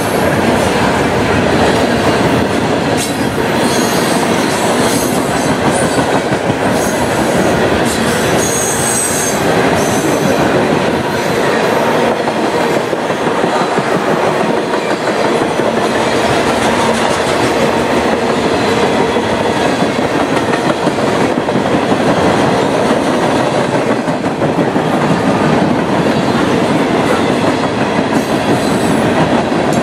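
Freight train's gondolas and tank cars rolling past close by: a steady loud rumble and rattle of steel wheels on rail, with wheel clicks over rail joints and a brief high-pitched squeal about nine seconds in.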